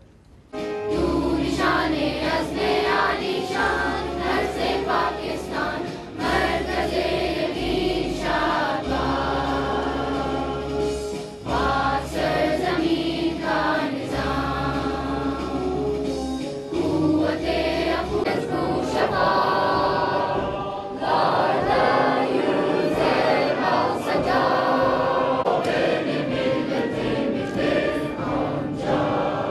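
Choral music: a choir singing over instrumental accompaniment with sustained low bass notes, starting about a second in.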